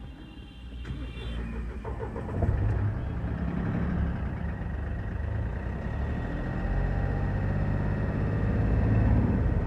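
Mahindra Bolero diesel engine starting up and then running steadily, on newly replaced and freshly coded injectors. The level builds over the first couple of seconds and jumps about two and a half seconds in, then holds steady.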